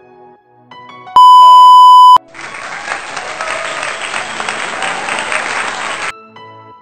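Soft, calm background music, broken about a second in by a very loud electronic beep lasting about a second, then a burst of applause that stops abruptly near the end.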